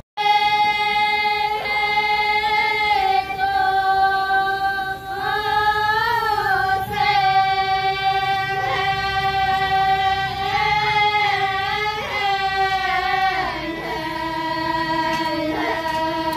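Women pa'katia dancers singing the Toraja funeral chant together, unaccompanied, as a single melody of long held notes that bend slowly in pitch. The melody steps down to a lower note about three-quarters of the way through.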